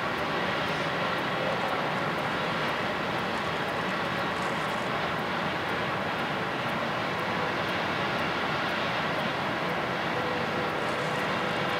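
Jet airliner's twin turbofan engines at taxi power: a steady rush with a faint, even whine of several held tones.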